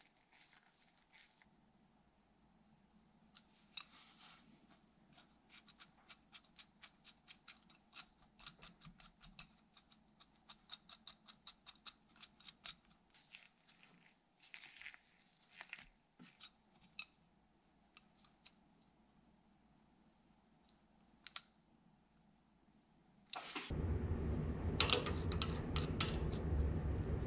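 Antique Bemis & Call adjustable wrench being worked by hand: small metal clicks as the knurled worm screw is turned and the sliding jaw moves, in quick runs of several clicks a second. Near the end a much louder steady noise with a low hum comes in.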